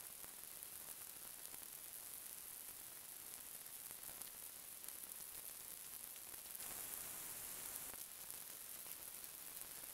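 Faint, steady high-pitched hiss, swelling a little for about a second near seven seconds in.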